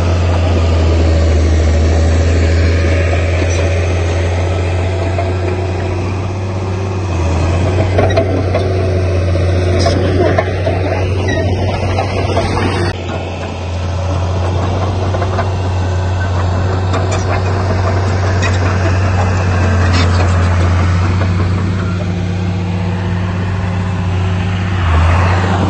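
Heavy diesel machinery engine running steadily with a deep drone. The sound changes abruptly for a few seconds in the middle.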